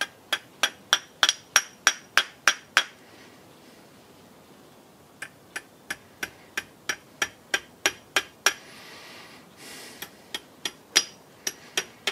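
Small hammer tapping steel dowel pins into a steel face milling cutter body: quick, light metallic taps, about three a second, in three runs with short pauses between them.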